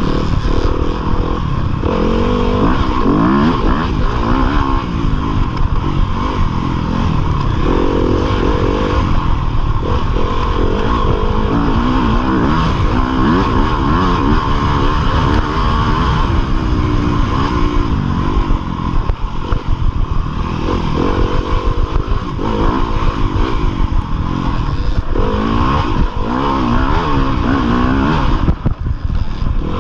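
Yamaha YZ250FX dirt bike's 250cc single-cylinder four-stroke engine at race pace, its pitch rising and falling over and over as the throttle is opened and shut, with short knocks and rattles from the bike running over rough ground.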